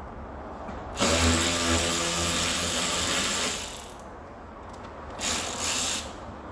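Handheld power tool running on a fastener: one run of about two and a half seconds starting about a second in, then a shorter run of under a second near the end.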